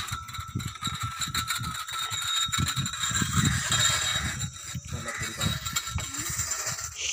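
Iron boring pipe knocking and rattling irregularly as it is turned and weighted down by hand to sink a water bore, over a faint steady high whine and low rumbling thuds.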